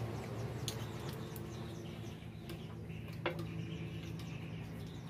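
A few light, scattered clicks of chopsticks against china plates and a metal wok during a meal, over a steady low hum.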